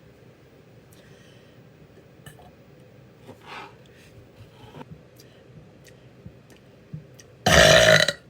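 A woman's single loud, deep burp, lasting under a second, near the end. Before it there are a few seconds of quiet with faint clicks.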